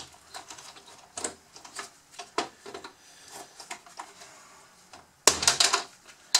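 Scattered clicks and knocks of hard plastic parts on a Bruder CAT D11 toy bulldozer being handled and worked loose with a screwdriver during disassembly, with a louder burst of clatter about five seconds in.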